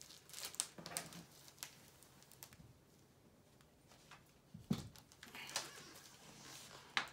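Quiet rustling and handling noises as a picture book is shifted and a felt cutout is pressed onto a felt board, with scattered light clicks, a single low thump a little before five seconds in and a sharp click near the end.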